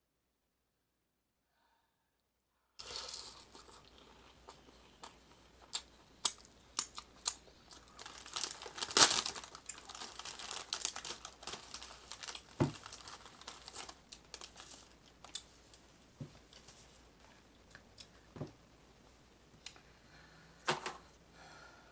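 A white bag of saltine crackers being handled and crinkled as crackers are pulled out of it. It is silent for about the first three seconds, then comes a run of sharp crackles and rustles, loudest about nine seconds in.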